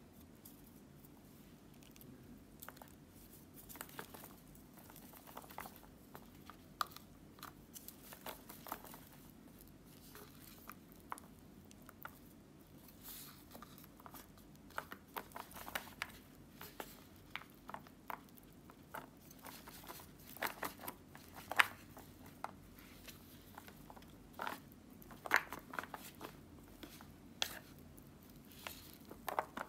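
Wooden chopsticks lifting and tossing instant yakisoba noodles in a plastic tray to mix in the seasoning powder: soft, irregular clicks and crackles, with a few sharper clicks about two-thirds of the way in.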